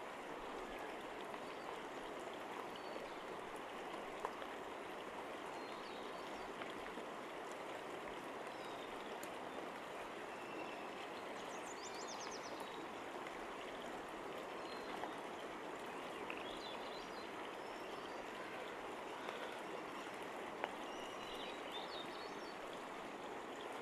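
Steady rushing of flowing creek water, with a few faint, short high chirps now and then.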